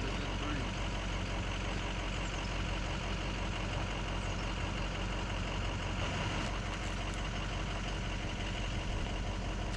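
A heavy engine idling at a steady, unchanging speed.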